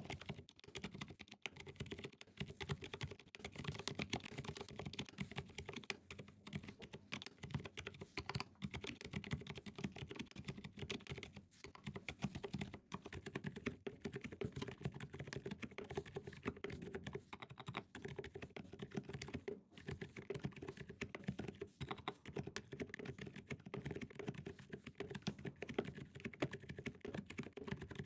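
Continuous typing on a KBD67 Lite mechanical keyboard with lubed and filmed Zealpc Zilent v2 silent tactile switches: dense, muted keystrokes, with GMK keycaps at first and SP SA keycaps from about halfway through.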